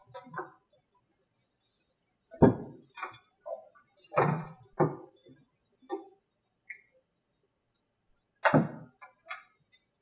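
A series of separate thunks and light knocks as a small gasoline model-aircraft engine and its ignition module are handled and set down on a tabletop, with a few small clinks of metal parts.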